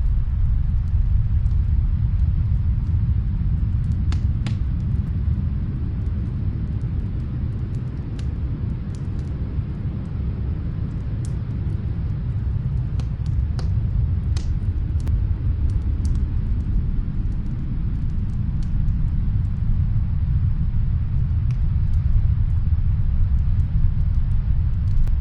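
Snowstorm wind blowing as a steady deep rumble, with the faint, scattered pops of a wood fire crackling in a fireplace.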